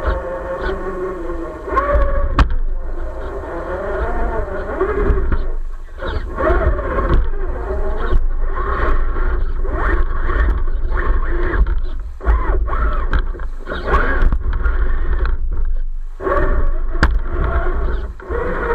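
RC Jeep Gladiator off-road truck driving: its electric motor and gear drive whining up and down in pitch with the throttle, with scrapes and knocks from the truck working over rough ground and a low rumble underneath.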